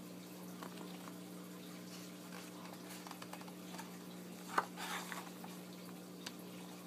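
Paperback travel guide being handled and opened: small taps and handling sounds on the cover, then a sharp snap about halfway through as the cover and pages open, followed by a brief rustle of paper and a smaller tap near the end. A steady low hum lies underneath.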